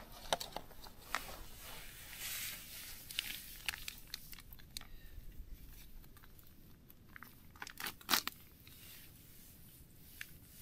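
Food packaging crinkling and being torn open by hand, with scattered light clicks and small knocks from handling; one sharper knock about eight seconds in.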